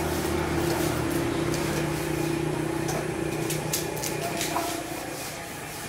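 A steady motor hum that fades away after about four and a half seconds, with a few faint clicks over it.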